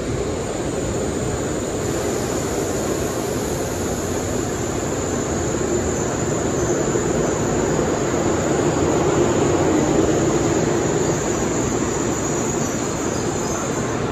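Tokaido Shinkansen train running at speed: a steady rush and rumble of wheels and air that swells a little about halfway through.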